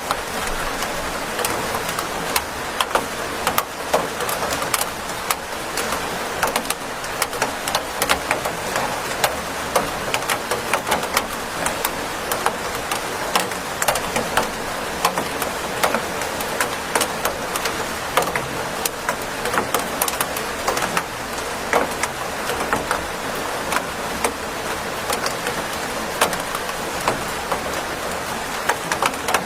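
Steady rain, with many sharp, irregular hits of individual drops on a hard surface.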